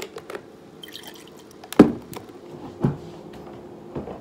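Iced coffee poured from a carton into a ceramic mug, with a sharp knock about two seconds in and softer knocks about a second and two seconds later.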